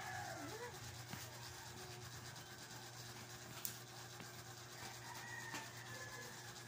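Faint rubbing of hands on skin and cloth as a bare foot and leg are pressed and massaged, over a steady low hum.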